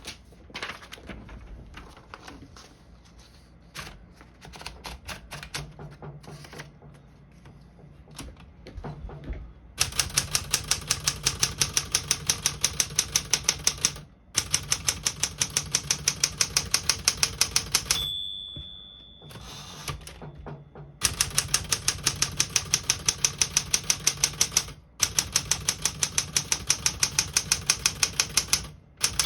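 Smith-Corona Galaxie 10 Deluxe portable manual typewriter being typed on. At first there are scattered, lighter clicks, then about ten seconds in it settles into long runs of fast, even keystrokes. About eighteen seconds in the margin bell rings once, at the end of a line, and the typing pauses before it resumes.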